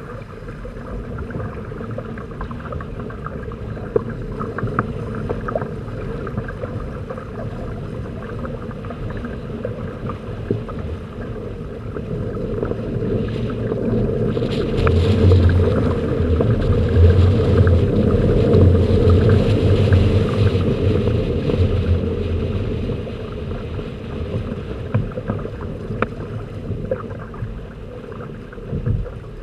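Water rushing and slapping along the hulls of a Hobie Tandem Island sailing trimaran under way, with wind buffeting the microphone. The rush and rumble swell louder for several seconds in the middle, then settle back.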